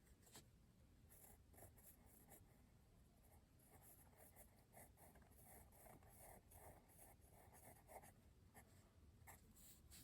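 Faint scratching of a Dixon Ticonderoga pencil writing on paper, a run of short strokes as a word is written out.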